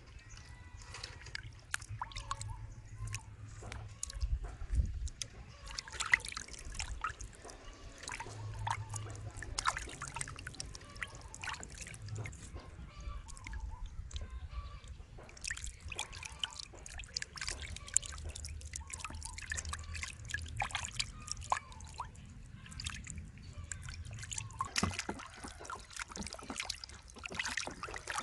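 Hands washing raw chicken drumsticks in a plastic basin of water: irregular splashing, sloshing and dripping as the pieces are rubbed and turned in the water.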